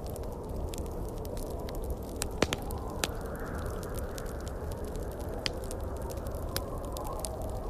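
Wood fire crackling, with scattered sharp pops over a steady low rush of wind; the loudest pop comes about two and a half seconds in.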